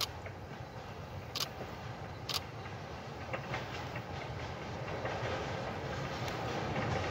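Two-foot narrow-gauge steam train approaching through the woods: a steady low rumble that grows louder over the last couple of seconds, with a few sharp clicks in the first half.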